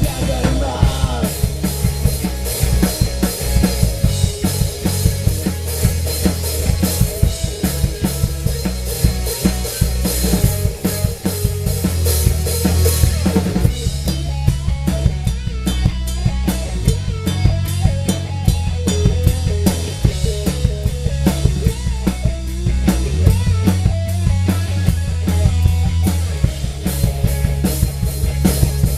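Instrumental rock music: a drum kit plays a steady beat over low bass notes that change every few seconds, with no singing.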